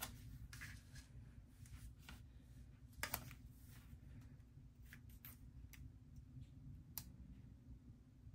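Faint scattered clicks and paper rustles as small stickers are picked off a sticker sheet and pressed onto a planner page with long fingernails, with a sharper click about three seconds in, over a low steady room hum.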